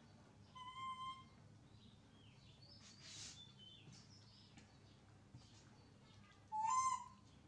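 Baby macaque giving two short, high-pitched coo calls, one about a second in and a louder, slightly rising one near the end, with a brief hiss and faint squeaks between.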